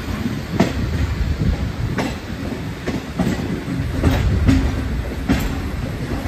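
Goods train of steel open box wagons rolling past on the track: a steady low rumble with irregular sharp clacks from the wheels on the rails.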